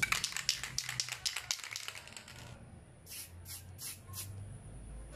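Aerosol can of clear spray paint hissing in short bursts as a coat is sprayed over a small RC receiver circuit board to waterproof it: a rapid run of quick squirts for the first couple of seconds, then four separate short squirts.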